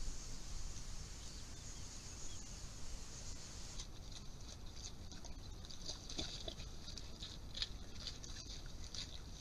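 Wild boars and piglets feeding on scattered bait: rapid crunching, chewing and rustling clicks. This comes after a steady hiss from the Bushnell Trophy Cam trail camera's microphone, which gives way to the feeding about four seconds in.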